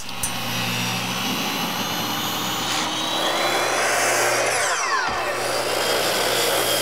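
Electric miter saw running and cutting a piece of PVC trim: a steady motor whine with the noise of the blade biting through the board, and a falling whine about four and a half seconds in.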